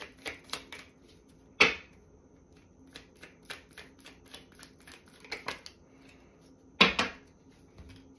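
A deck of oracle cards being shuffled by hand: quick runs of light card clicks, with two louder slaps of cards, about a second and a half in and near the end.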